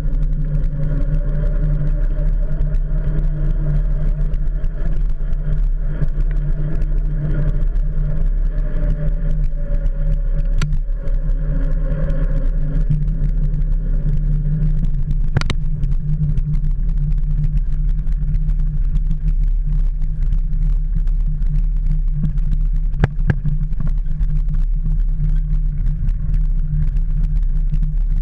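Steady wind and road rumble on a bicycle's handlebar-mounted camera as the bike rolls along a paved road, with a faint engine drone that fades out about halfway. Three sharp knocks break through, at roughly 11, 15 and 23 seconds in.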